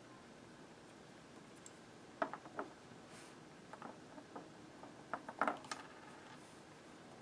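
Small light clicks and taps of a Tiny Whoop micro drone's parts being handled and fitted back together, in three short clusters about two, four and five and a half seconds in, the last the loudest.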